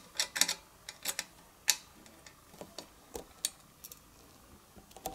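Irregular small metallic clicks and ticks from a flat-blade screwdriver turning a slotted terminal screw on an elevator call station's terminal block, clamping a wire under the screw. The clicks come thickest in the first two seconds, then thin out.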